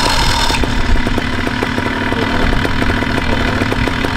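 Vittorazi Moster 185 EFI fuel-injected paramotor engine just started, catching and settling about half a second in, then idling steadily with an even firing beat.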